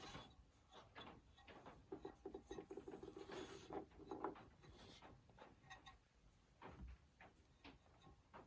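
Near silence with faint scattered light clicks and rubbing from small parts being handled.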